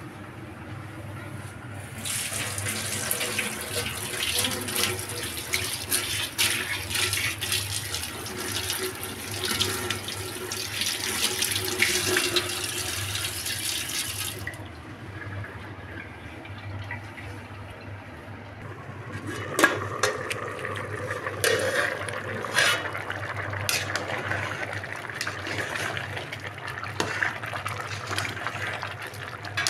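Kitchen sink tap running onto a metal spoon as it is rinsed, for about twelve seconds, then shut off. Later come several sharp clinks and knocks of a utensil against a steel cooking pot.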